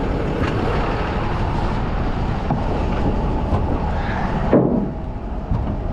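Steady noise of highway traffic going past, with a short louder knock about four and a half seconds in, followed by a brief dip.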